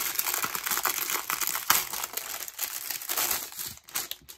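Thin clear plastic packaging bag crinkling as hands handle it and pull a kit out of it, a dense crackle that dies down about four seconds in.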